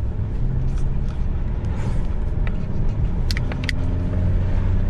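Car engine and road noise heard from inside a moving car: a steady low rumble, with two or three short clicks about three and a half seconds in.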